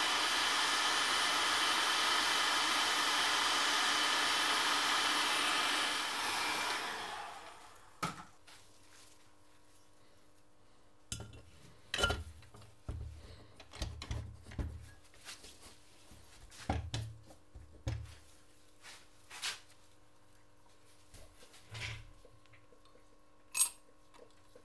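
A steady rushing hiss of air for about seven seconds, fading out. Then scattered light knocks, clicks and dull thuds as the aluminium crankcase halves are handled and fitted together on the bench.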